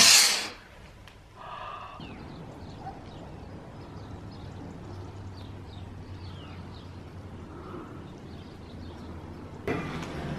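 Quiet outdoor ambience with faint, scattered bird chirps over a low steady hum, after a brief rustle at the start. Near the end it switches to indoor room noise.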